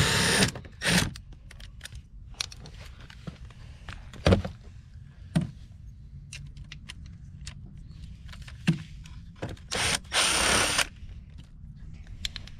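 Cordless impact driver spinning out the plastic clips that hold a car's side skirt, in short bursts at the start and about a second in, then one longer burst about ten seconds in. A few sharp clicks and knocks fall between the bursts.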